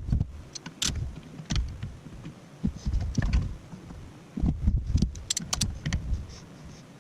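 Scattered clicks, ticks and low knocks from hands handling metal parts and tools, in irregular bunches with short quiet gaps.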